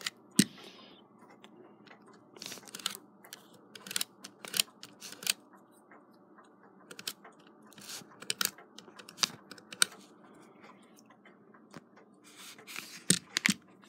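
Irregular light clicks and taps of close-up handling as grease is worked into the coils of a steel clock-type mainspring in its barrel. The clicks come in small clusters and are scattered among quieter stretches.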